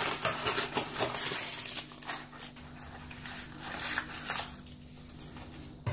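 Parchment paper crinkling and rustling as it is cut away around the rim of a cake tin: a busy run of rustles and snips that thins out after a couple of seconds, with a few more near the end.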